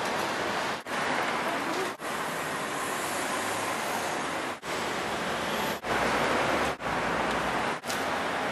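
Street traffic noise: a steady rushing hiss of passing cars, cut by several brief dropouts.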